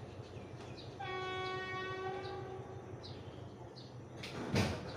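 State Railway of Thailand diesel locomotive horn sounding one steady blast of about two seconds, starting about a second in. Near the end comes a brief, louder rush of noise.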